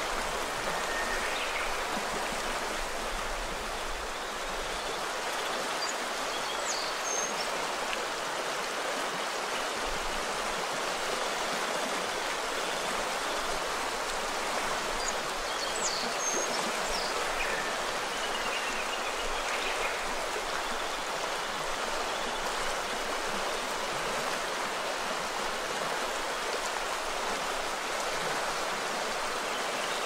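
The Azusa River, a mountain river, flowing in a steady rushing wash of water, with a few short high chirps over it here and there.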